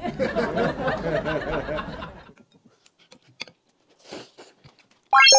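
Laughter, several layered voices, for about two seconds, then near quiet with a few faint clicks. Near the end an electronic chime sounds, with a quick rising sweep into steady ringing tones.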